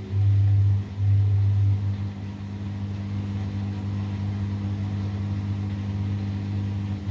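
Samsung WW70T4020EE front-loading washing machine humming during its drain/spin cycle. The hum pulses on and off in the first two seconds, then turns steady and a little quieter.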